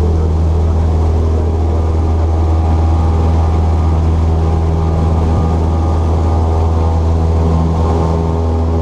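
Cessna 172's piston engine and propeller running steadily, a loud, even drone heard from inside the cockpit.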